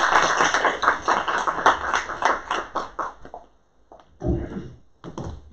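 Audience applause at the end of a lecture, dying away after about three and a half seconds.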